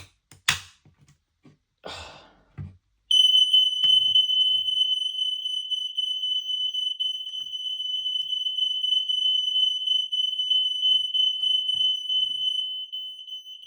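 Interlinked smoke alarms set off by a manual fire alarm call point, sounding one continuous high-pitched tone that starts about three seconds in, after a couple of short knocks as the call point is operated, and stops right at the end.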